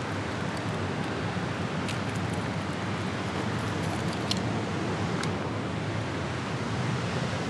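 Steady rush of fast, turbulent spillway water below a dam, with a few faint clicks about two, four and five seconds in.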